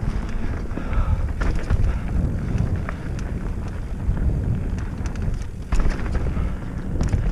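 Mountain bike riding fast down a dirt trail: wind buffeting the microphone with the tyres rolling over dirt, and frequent rattles and knocks from the bike over bumps, one harder knock about two-thirds of the way through.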